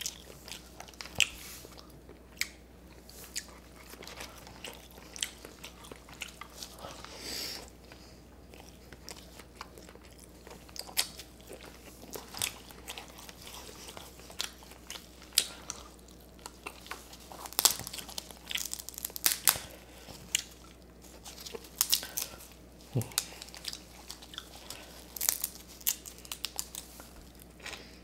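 A person eating close to the microphone: chewing and biting, with many irregular sharp, crunchy clicks.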